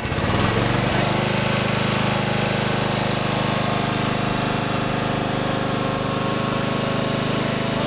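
Old outboard motor, just started, picking up in the first half second and then running steadily at an even speed.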